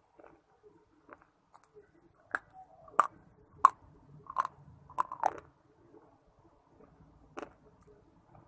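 A person biting and chewing hard, brittle pieces of clay or shale stone close to the microphone: quiet chewing at first, then a run of about six sharp crunches, and one more crunch near the end.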